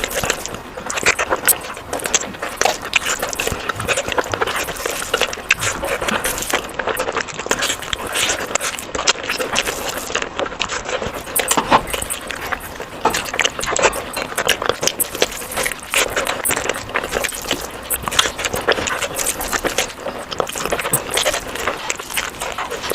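Close-miked eating sounds: chewing with a dense, irregular run of small mouth clicks and crackles.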